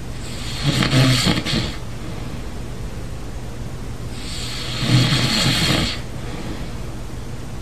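A sleeping person snoring loudly: two long snores about four seconds apart, each lasting over a second, over a steady low hum.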